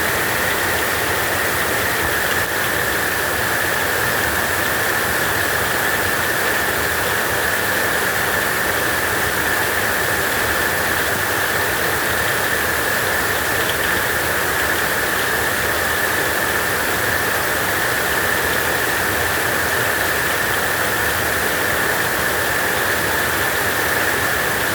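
Heavy rain falling steadily, an even rushing hiss with no breaks.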